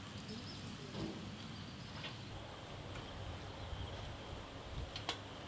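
Faint outdoor ambience: a steady low rumble with a thin high tone in the first half and a few sharp clicks, one about two seconds in and one near the end.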